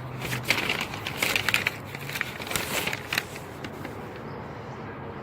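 Paper rustling and crinkling as a sheet of paperwork is handled and a page turned, with a busy run of crackles over the first three seconds, then quieter.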